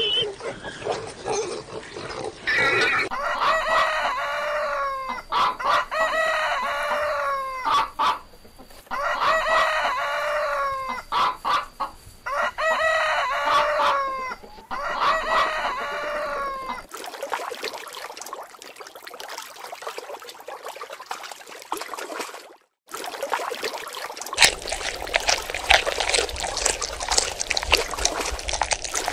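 A rooster crowing about five times in a row, each crow a long pitched call. Before it there is brief pig grunting, and near the end water splashing and trickling.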